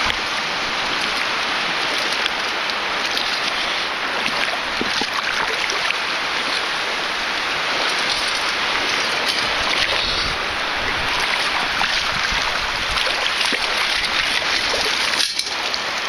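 Water sloshing and churning as a long-handled perforated metal sand scoop digs into the bottom of shallow water and is worked to sift the sand, with a few faint scrapes and clicks.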